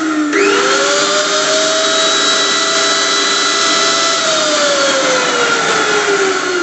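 Electric blender motor running with a whine and a rushing noise of the spinning blades: it speeds up sharply about a third of a second in, holds a steady pitch, then slows gradually over the last two seconds or so.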